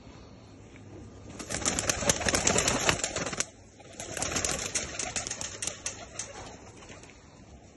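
Shaqlabaz tumbler pigeons flapping their wings in two rapid clattering bouts. The first starts about a second and a half in, and the second, a little softer, follows about four seconds in.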